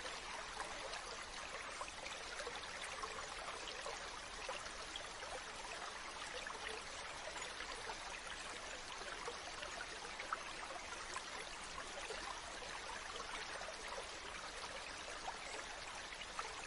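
Mountain stream running: a steady, even rush of water with many small splashes.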